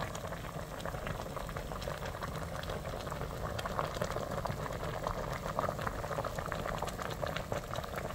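A pot of doenjang soup with radish greens in beef-bone broth at a rolling boil: a steady, dense bubbling, full of small pops.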